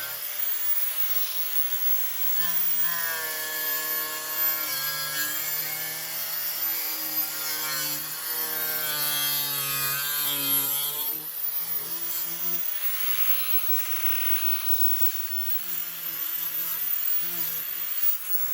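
Electric circular saw cutting through a plastic rear diffuser. The motor's whine dips and recovers in pitch as the blade takes the cut, and turns rougher and weaker after about eleven seconds.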